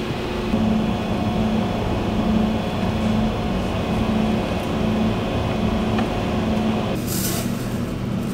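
Bernardi dough mixer running as it kneads pizza dough in its bowl: a steady motor hum with a regular pulsing throb. A brief hiss comes near the end.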